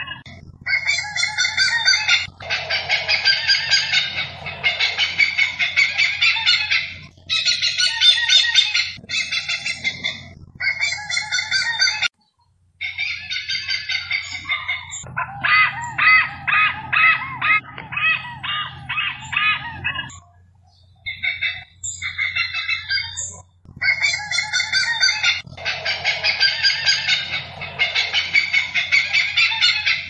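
Hornbill calls: long runs of rapid, evenly repeated notes, several a second, each run lasting a few seconds before a short pause and a new run.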